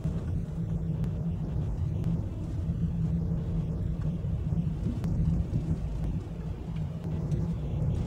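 A vehicle driving along a road: a steady low rumble of engine and tyres.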